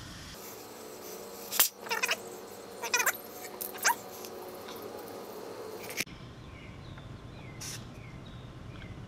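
CO2 from a 16-gram cartridge hissing through a hand tyre inflator into a motorcycle tyre valve, with several short squeals between about one and four seconds in; the gas flow cuts off suddenly about six seconds in. A single click follows near the end.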